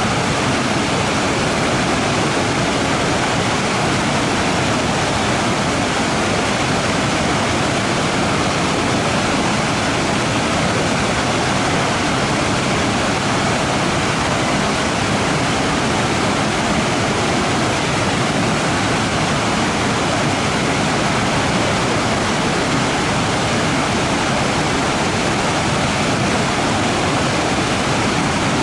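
Waterfall: water falling and rushing in a steady, even roar with no breaks or changes.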